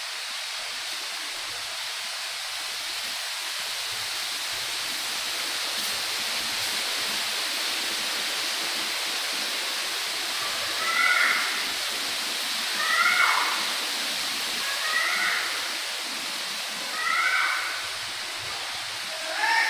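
A cat meowing five times, about every two seconds, starting about halfway through, over a steady hiss.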